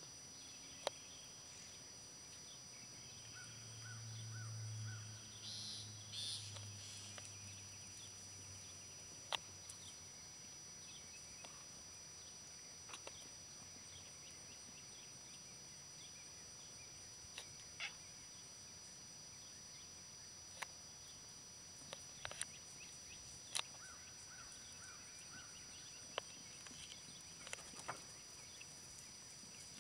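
Faint outdoor ambience with a steady high insect drone and scattered short clicks. A low hum swells and fades between about three and nine seconds in.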